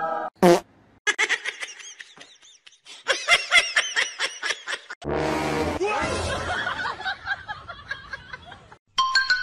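Laughter in quick repeated bursts, after a short loud sound about half a second in.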